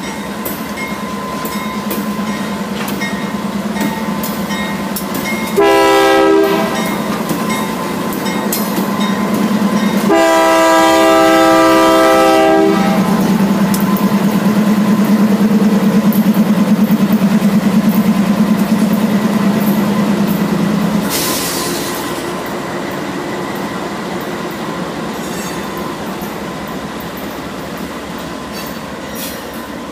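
A pair of BNSF GE Dash 9-44CW diesel locomotives passing close, their engines giving a steady low drone that swells as they go by. The horn sounds a short blast about six seconds in and a longer one about ten seconds in, and a brief hiss comes about 21 seconds in.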